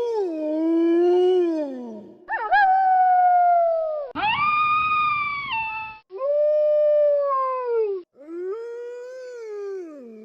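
Wolves howling: five long, pitched howls in a row, each about two seconds, most sliding down in pitch at the end, with abrupt breaks between several of them.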